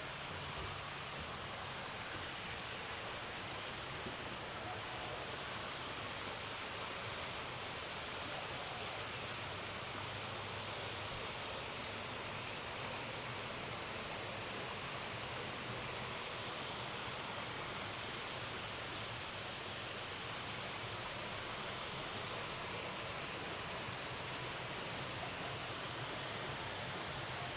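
Steady rushing of flowing water, like a small garden waterfall or stream, even and unbroken throughout.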